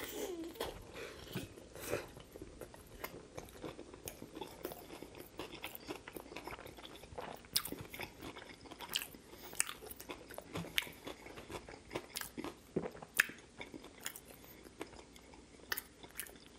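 A person chewing a big mouthful of mac and cheese with fried chicken and crispy fried onions, with many short, sharp crunches throughout.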